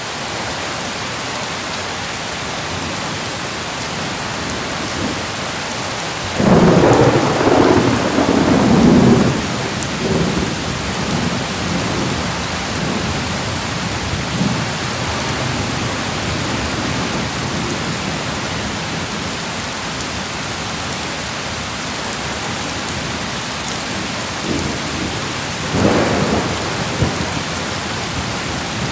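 Steady rain falling, with thunder rumbling twice: a long, loud rumble lasting about three seconds early in the first third, and a shorter one near the end.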